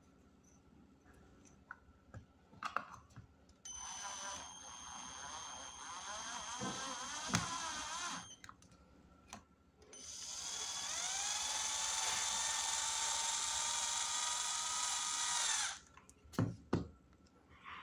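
Cordless drill-driver driving small screws into a PVC model casing: two runs of the motor, the first about four seconds long and wavering in pitch as the screw bites, the second about six seconds long, rising in pitch and then holding steady. A few short knocks from handling the parts come before and after.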